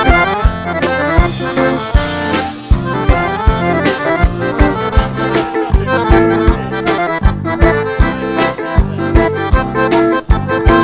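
Instrumental break of a gaúcho xote: piano accordion playing the melody and chords over bass and electric guitar, with a steady beat of about two strokes a second.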